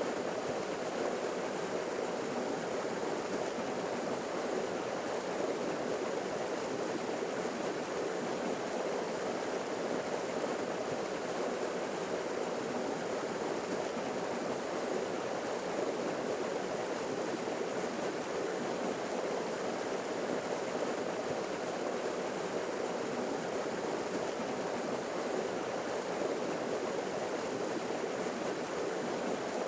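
Forest waterfall: water falling and rushing steadily, with no change in level.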